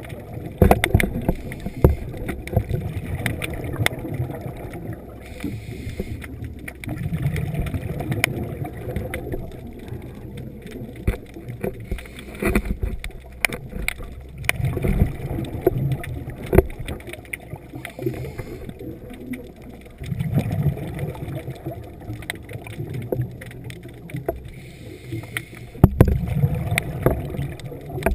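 A scuba diver breathing underwater, heard through the GoPro housing: exhaled regulator bubbles rumble out about every six seconds, with scattered clicks and crackles in between.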